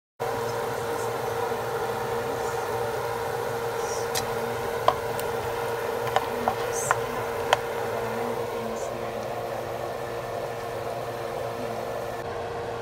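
Steady kitchen background noise with a constant hum, and a few sharp taps of utensils on metal cookware about halfway through.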